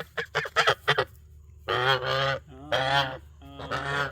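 Geese honking: a quick run of short honks in the first second, then three longer, drawn-out honks.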